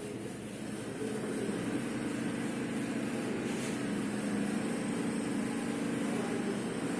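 Steady low background hum with a hiss, slightly louder from about a second in.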